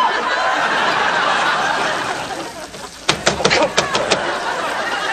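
Studio audience laughing, the laughter fading out a little past halfway, followed by a quick run of sharp clicks or knocks.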